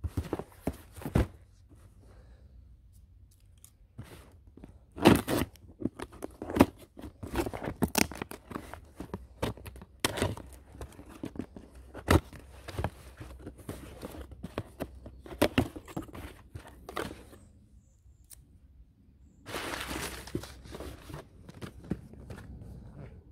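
Unboxing a cardboard parcel: a few knocks on the box, then scissors snipping and packing tape being cut and ripped off the cardboard in a long run of sharp rips and scrapes. Near the end, crumpled kraft packing paper rustles as the box is opened and the contents lifted out.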